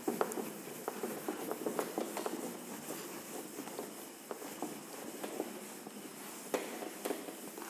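A whiteboard being wiped clean with a handheld eraser: irregular rubbing strokes with many small scuffs and knocks.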